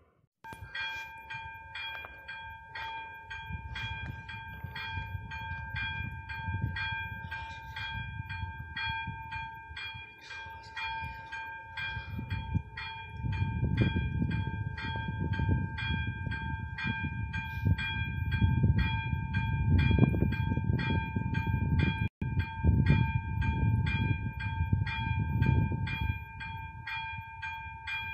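AŽD 71 level-crossing warning signal's electronic bell ringing in an even repeated rhythm, its steady ring struck again and again while the crossing is closed for an approaching train. A low rumble underneath grows louder in the second half.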